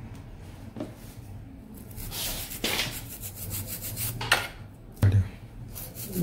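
Toothbrush bristles scrubbing a wetted laptop motherboard connector, a run of quick scratchy strokes starting about two seconds in, cleaning off corrosion left by water damage. A short thump about five seconds in.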